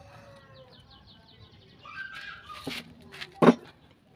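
A few wooden knocks as a chunk of weathered scrap timber is set down upright on a wooden workbench, the loudest about three and a half seconds in. A faint animal call sounds in the background just before.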